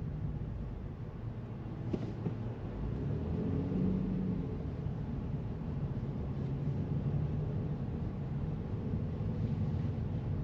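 Low, steady engine and road noise heard inside a slowly moving car's cabin, with one faint click about two seconds in.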